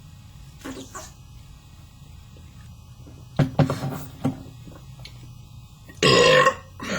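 A man belching: a few short, fainter sounds a little past three seconds in, then one loud belch about six seconds in and a shorter one just before the end.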